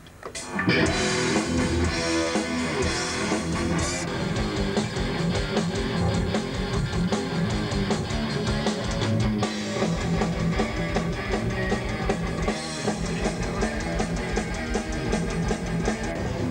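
A metal band comes in about half a second in and plays on at an even level, guitars and drum kit together.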